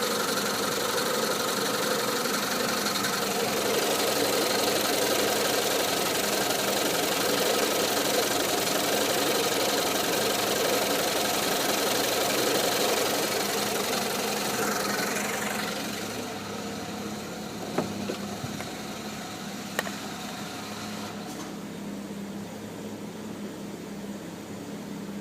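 Alfa Romeo car engine running steadily. About fifteen seconds in it drops to a quieter run, and two sharp clicks come a couple of seconds apart.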